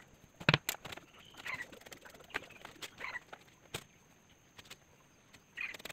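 A hand working wet cement mortar, scooping and pressing it onto a cement tree-stump pot, with a few sharp knocks, the loudest about half a second in and another near four seconds. Faint short animal calls sound in the background every second or so.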